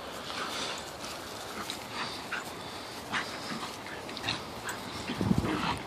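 A puppy and an older dog play-fighting, with many short, high-pitched dog noises scattered through and a louder, lower burst of sound about five seconds in.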